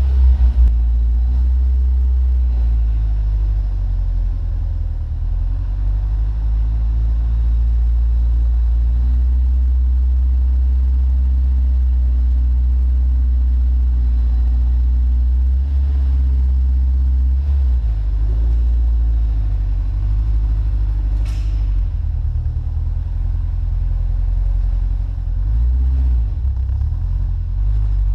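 Honda S2000's four-cylinder engine running steadily through a Supersprint aftermarket exhaust, a deep, even drone with small shifts in pitch. A single short, sharp click about three-quarters of the way through.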